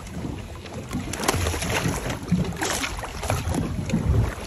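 Small boat at sea: water slapping the hull and wind on the microphone, with scattered irregular knocks and thuds.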